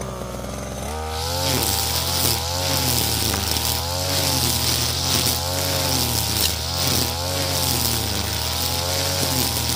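STIHL FR3001 backpack brush cutter's 32cc two-stroke engine running at speed while cutting grass. It picks up about a second in, and its note then rises and falls about once a second.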